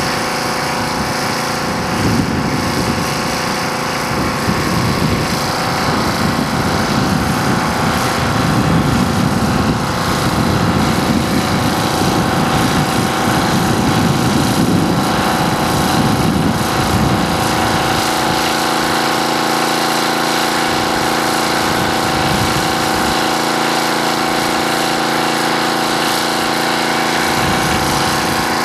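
A small engine running steadily at one constant speed, its hum even and unchanging.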